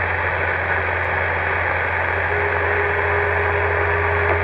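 Magnum CB radio receiving an open channel with no voice: steady static hiss over a constant low hum. A thin steady tone joins about halfway through.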